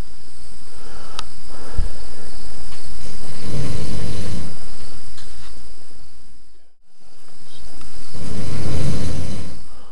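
A man snoring in his sleep: two long snores that each swell and fade, the second starting about two-thirds of the way through.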